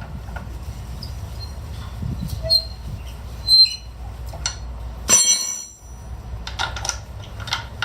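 Wheel lug nuts being worked loose with a lug wrench: short metallic squeaks and clicks, with a sharper squeal about five seconds in, over a steady low rumble.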